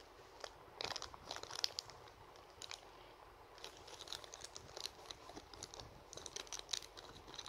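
Thin plastic blind-bag wrapper crinkling and rustling in the hands, in irregular bursts that come thickest in the second half.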